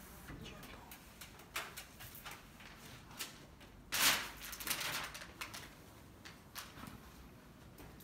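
A large plastic smart-film sheet rustling as it is handled and pressed against a glass door, with scattered sharp clicks and a louder rustle about four seconds in.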